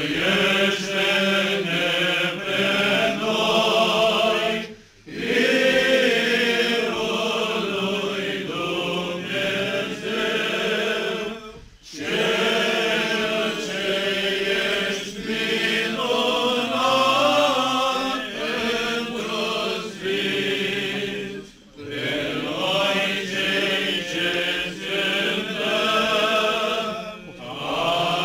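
Several voices chanting an Orthodox liturgical hymn together, in long sung phrases with a few brief pauses for breath.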